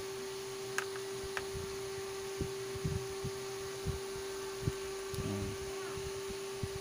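Soft handling noises as fingers work a headphone cable and its small plastic housing: two light clicks about a second in and scattered soft low bumps. Under them runs a steady electrical hum.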